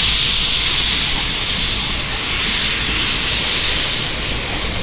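Steam locomotive venting steam from its cylinder drain cocks and chimney while shunting: a loud, steady hiss that swells and eases a little.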